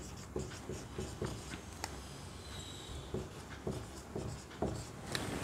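Dry-erase marker writing a word on a whiteboard: a run of short scratchy strokes and taps, with a faint brief squeak about halfway through.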